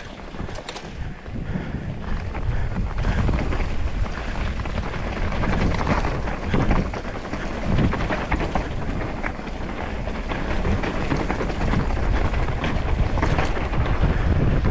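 Wind rushing over the camera microphone with tyre roar and rattling knocks from a mountain bike riding a rough trail, loud and continuous.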